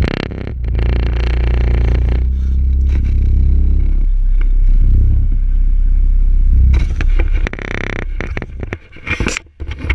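Handling noise from a GoPro in its waterproof housing being pulled out of a fabric bag: muffled rubbing and scraping against the bag, with rustling bursts late on. A low steady rumble sits under it and fades about seven seconds in.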